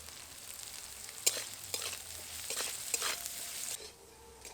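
Onion and capsicum sizzling in hot oil in a kadai, with a spatula scraping and knocking against the pan several times as they are stir-fried. The sizzle fades near the end.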